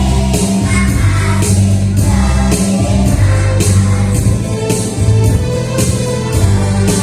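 Kindergarten children's choir singing together over accompaniment music with strong bass and a steady beat.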